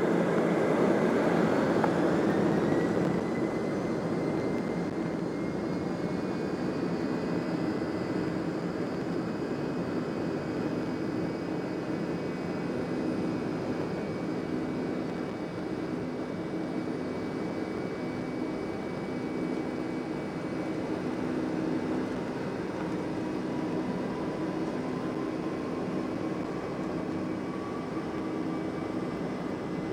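Boeing 757-300 jet engines running, heard from inside the cabin as a steady rush, louder for the first few seconds. A thin high whine holds throughout, and a second whine rises slowly in pitch over the last ten seconds.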